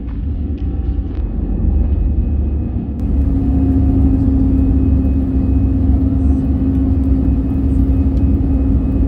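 Jet airliner's engines at takeoff thrust heard from inside the cabin, with the low rumble of the wheels on the runway during the takeoff roll. The sound grows louder over the first few seconds, and a steady droning tone sets in about three seconds in.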